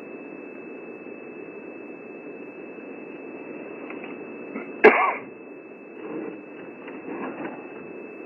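A single sharp crack about five seconds in, like a tree branch snapping as an elephant breaks it off with tusk and trunk, followed by two fainter rustles of branches a second or two later, over steady hiss.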